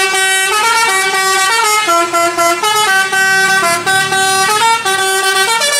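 Multi-tone bus horn playing a tune of short stepped notes, sounding continuously.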